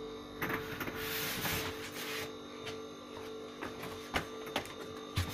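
Steady machinery hum with several fixed tones. Rustling and shuffling during the first two seconds, and a few knocks near the end.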